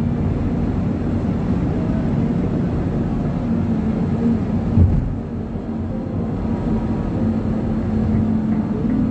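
Steady road and engine noise of a moving car, heard from inside the cabin. There is one short low bump just before five seconds in.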